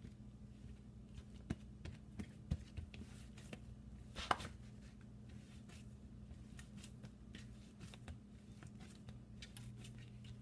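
Hands kneading soft dough on parchment paper: scattered soft taps and paper rustles, a few of them sharper, over a steady low hum.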